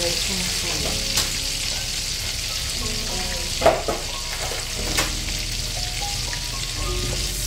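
Margarine melting in hot oil in a frying pan, sizzling steadily, with a few sharp pops, the loudest a little past halfway.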